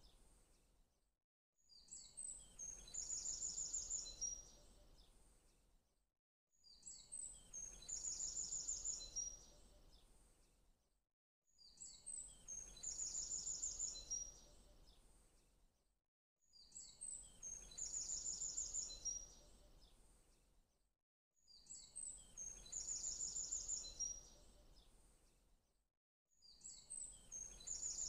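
A short, high bird song phrase, a few quick chirps running into a rapid trill, repeating identically about every five seconds with brief near-silent gaps: a looped birdsong background track.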